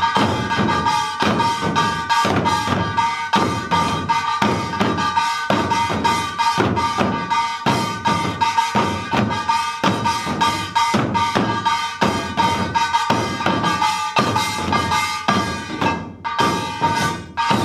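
Korean buk barrel drums beaten by a troupe of drum dancers in a fast, driving rhythm, with a small brass gong (kkwaenggwari) ringing steadily over the drums.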